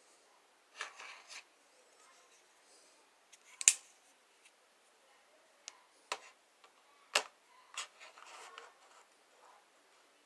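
Small hard objects being handled: a short rustle, then a few sharp mechanical clicks, the loudest about three and a half seconds in.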